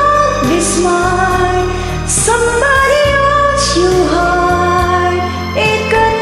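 A woman singing long held notes over a karaoke backing track of a slow pop ballad.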